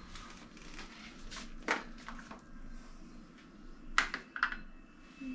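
A few light clicks and knocks of kitchen items being handled. The sharpest come as a quick pair about four seconds in, over a faint steady hum.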